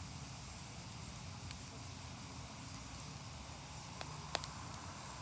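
Fire crackling: a steady hiss with a few sharp pops, the loudest about four seconds in.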